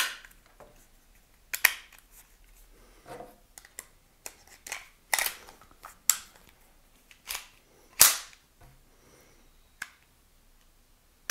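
Sharp metallic clicks and snaps from a Ruger Mark IV 22/45 Lite .22 pistol being reassembled by hand: the upper receiver is closed and latched onto the grip frame and the action is worked. There are about ten separate clicks spread out, the loudest about eight seconds in.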